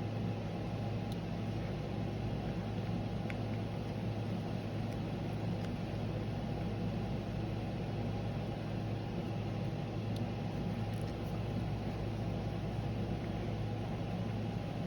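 A steady machine hum with a constant low drone, with a few faint small clicks scattered through it.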